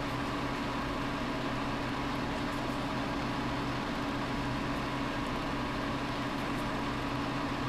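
Steady background hum and hiss with no distinct event.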